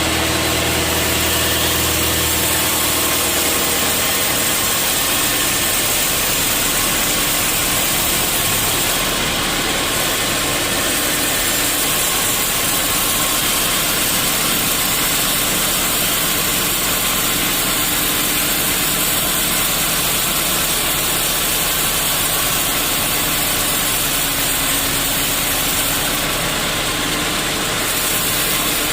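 Sawmill machinery running steadily, making a loud, even mechanical noise. A low hum underneath drops away about three seconds in.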